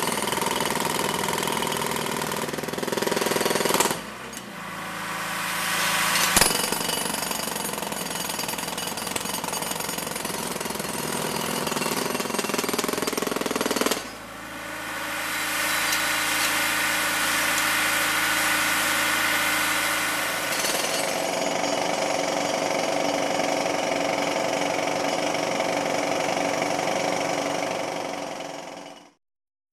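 Jackhammers breaking up a cracked concrete sidewalk, hammering almost without a break. The noise dips briefly twice, about 4 and 14 seconds in, and stops abruptly near the end.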